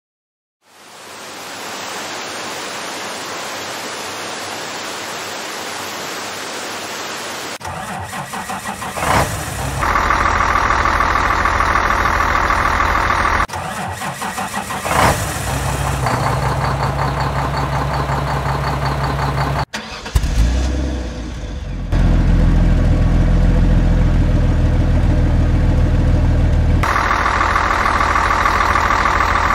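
A steady hiss for the first several seconds, then a vehicle engine running and idling, cut off and picked up again several times.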